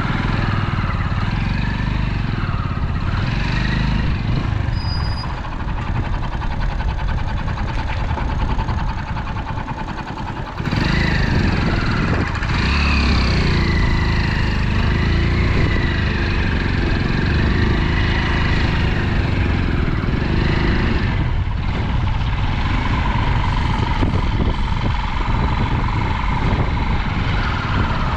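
Road traffic: vehicle and motorcycle engines running with a dense low rumble. About ten seconds in it gets louder and a wavering whine joins it.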